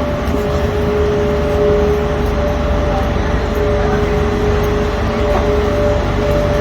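A vehicle running steadily: a loud low rumble under a haze of noise, with two steady humming tones on top.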